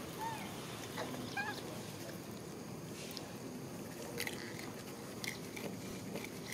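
Macaques giving a few short, high squeaky chirps: one curved chirp just after the start and another about a second and a half in, then several short sharp squeaks in the second half, over steady background noise.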